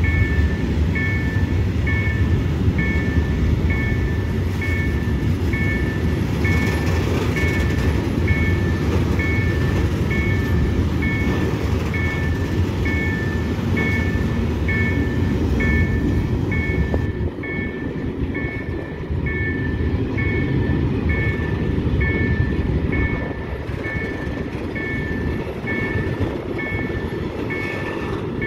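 Freight train of open-top gondola wagons rolling past at a steady pace, with a continuous rumble of wheels on rail. Over it, a level-crossing warning signal repeats a two-tone chime about once a second.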